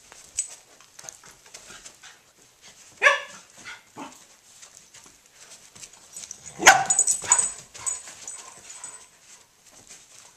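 Dogs play-fighting: huskies and a corgi give short barks and yips, a sharp one about three seconds in and the loudest about two-thirds of the way through, amid scuffling.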